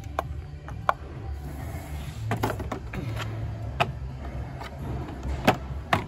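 Scattered sharp clicks and taps of a telescopic magnet and spark plugs being worked out of the engine's plug wells, over a steady low hum. The loudest click comes near the end.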